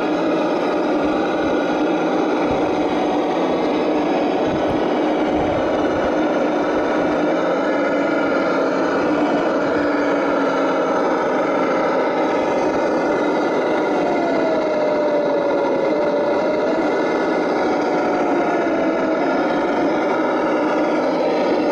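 Radio-controlled scale Land Rover Defender crawler running as it crawls through mud and water, a steady motor drone whose pitch slides down and back up with the throttle. There are a few low rumbles in the first several seconds.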